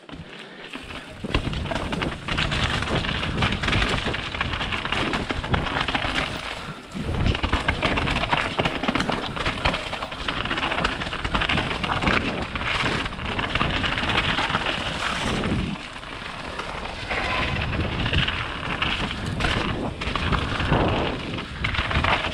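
A mountain bike ridden fast down a rocky trail: tyres crunching over stones and the bike rattling, a continuous rough rush full of small knocks.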